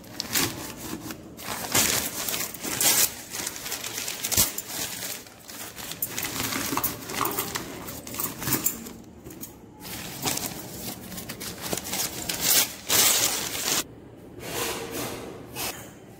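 Newspaper crumpling and rustling as it is pushed by hand into a stainless-steel kettle, in irregular bursts with short pauses.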